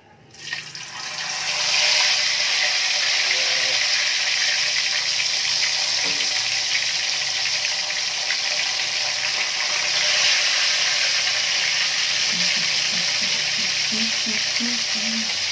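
Whole galunggong (round scad) frying in hot oil in an aluminium wok. The sizzle starts suddenly about half a second in as the fish go into the oil, builds over a second or so, then holds as a steady, even hiss.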